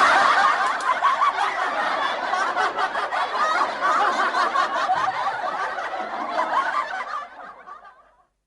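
Many voices snickering and laughing at once, a dense overlapping laughter that fades out near the end.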